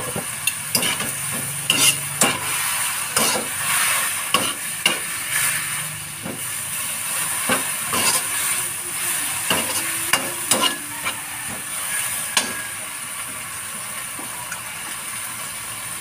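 Kangkong (water spinach) sizzling as it is stir-fried in a metal frying pan over a high gas flame, with repeated clacks of the utensil against the pan for about the first twelve seconds, then mostly steady sizzling.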